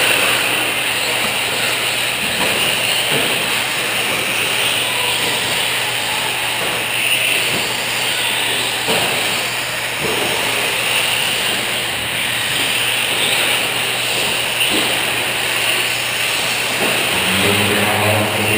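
Radio-controlled 1/10-scale 4WD short-course trucks racing on a clay track: a steady mix of electric motor whine and tyre noise, with a few faint knocks. A low-pitched sound comes in near the end.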